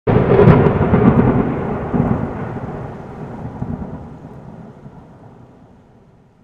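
Thunder-like crash and rumble from a logo intro sound effect. It starts suddenly, with crackles in the first second, and fades away over about six seconds.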